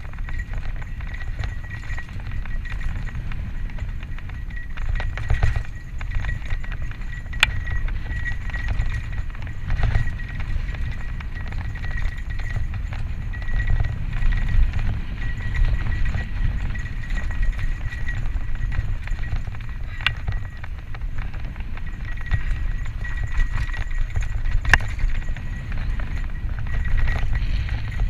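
Santa Cruz Tallboy LTC mountain bike descending a dirt singletrack at speed: heavy wind rumble on the GoPro's microphone, tyres on dirt and the bike rattling over bumps, with a few sharp knocks. A high, on-and-off buzz runs under it, the rear hub's freewheel as the bike coasts.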